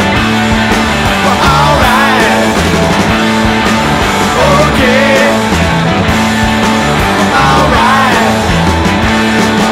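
Rock music soundtrack: a stepping bass line under a bending lead melody that wavers up and down.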